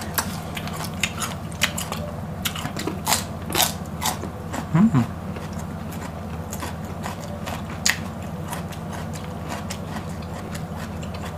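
Close-up crunching and chewing of raw green vegetables, a scatter of crisp irregular clicks, with a brief hummed sound about five seconds in.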